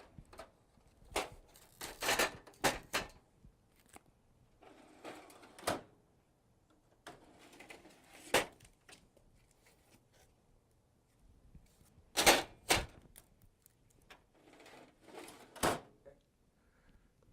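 Sharp plastic clicks and knocks from handling the copier's covers and trays, about a dozen in all, three of them coming at the end of a short scraping slide like a tray or panel being pushed home.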